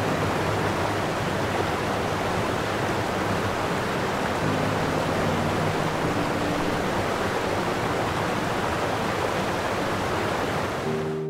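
A steady, even rushing noise with no rhythm or swell, cutting off suddenly at the end, with soft background music faintly underneath.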